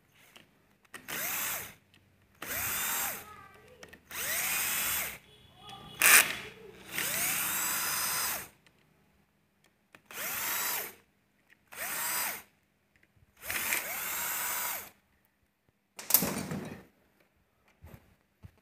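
Power drill-driver run in about nine short bursts of a second or so, spinning up and winding down each time, unscrewing bolts while a motorcycle engine is being taken apart.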